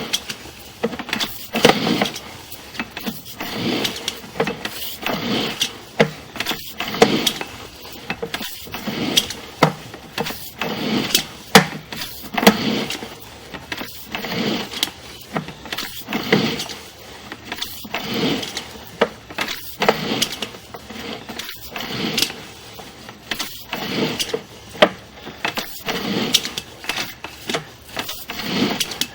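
Sewer inspection camera push cable being fed into the drain line in repeated hand strokes, scraping and rattling in bursts about once a second with sharp clicks among them.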